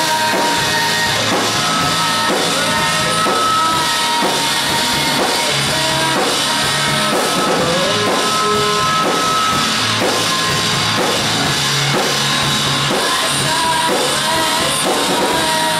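Live grunge-style rock band playing loud: fuzz-distorted electric guitar over a steady drum-kit beat, with a man singing into a microphone.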